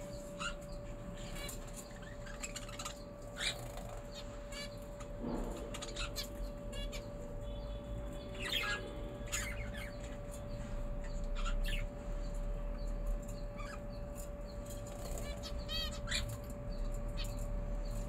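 Aviary birds chirping with short scattered calls and fluttering their wings, with a quick run of repeated chirps near the end, over a steady low hum.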